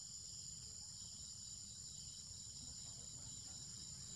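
Steady, high-pitched chorus of insects shrilling in the forest, with a low rumble underneath.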